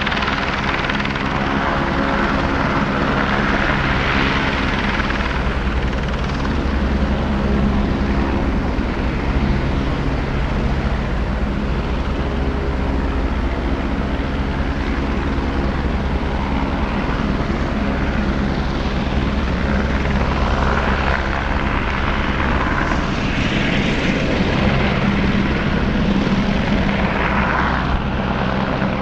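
AS 350 Écureuil single-engine turbine helicopter hovering close by with a bucket slung below, a steady rotor beat under a broad turbine and rotor rush, swelling a few seconds in and again in the second half.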